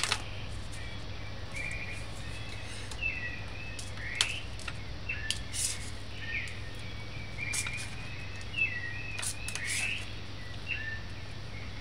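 Birds chirping with short, repeated sweeping calls, over a low steady hum. A few sharp knife taps on a plastic cutting board are heard as onion and garlic are sliced.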